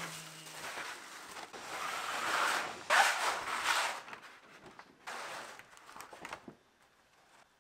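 Crinkling plastic wrap and the rustle of a thin oak veneer sheet flexing as it is unrolled by hand, loudest about three seconds in, with a second shorter bout of rustling and then quiet. A steady machine hum stops within the first second.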